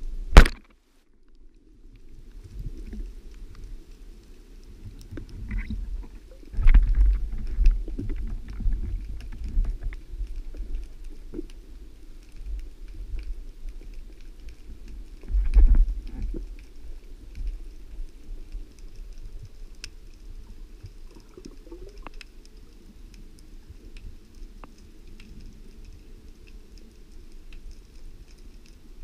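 Sound picked up by an underwater camera: a single sharp, loud crack about half a second in, typical of a speargun firing, then low rumbling water noise with small knocks and ticks, swelling louder around seven and sixteen seconds in.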